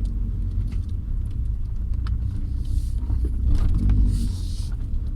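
Volvo 480 Turbo's 1.7-litre turbocharged four-cylinder running under way, a steady low drone through its handmade aftermarket exhaust. Two brief hissing swells come about three and four seconds in.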